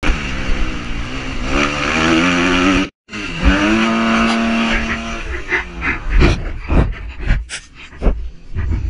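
Motocross bike engine revving hard, its pitch rising and falling, with a brief dropout about three seconds in. From about halfway on, the engine note fades into a run of irregular heavy thumps and knocks as the bike crashes.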